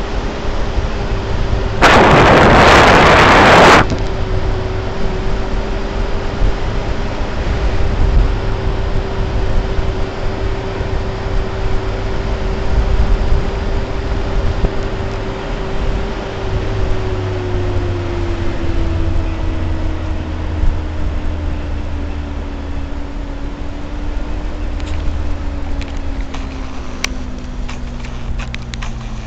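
Car driving on a paved road: steady road rumble with a humming tone from the drivetrain that holds, then slowly falls in pitch through the second half as the car slows. About two seconds in, a loud rushing burst of noise cuts in for nearly two seconds and stops abruptly.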